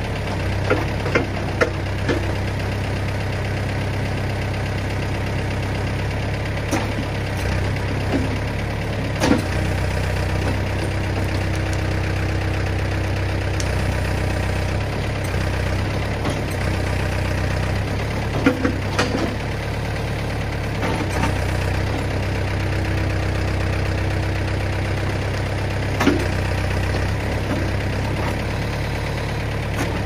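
Ford 555 backhoe's diesel engine running steadily while the hydraulic boom pushes the bucket against a tree trunk to topple it. A handful of sharp knocks come through, a cluster near the start and single ones later.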